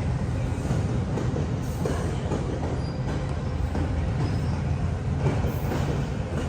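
A moving train running steadily on the rails, a continuous low rumble.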